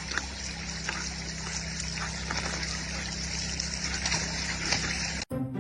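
A steady rushing noise over a low, even hum, with a few faint clicks, cutting off suddenly near the end.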